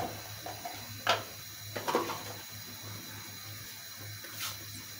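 Whole spices handled in a mesh cloth pouch: a few short taps and rustles, the sharpest about a second and two seconds in, over a steady faint hiss and low hum.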